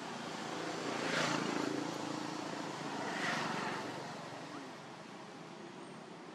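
Vehicles passing by: a steady rush of background noise that swells about a second in and again about three seconds in, then settles.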